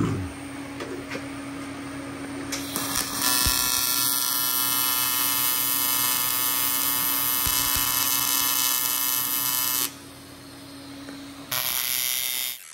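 TIG welding arc buzzing steadily as a polished intercooler tube is welded, after a short thump at the start. The buzz stops about ten seconds in, then a second, shorter weld starts near the end.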